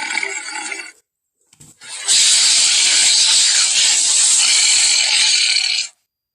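Cartoon Giganotosaurus vocal sound effect: one harsh call trails off about a second in, then after a short gap a second, long, harsh and noisy call lasting about four seconds that cuts off abruptly.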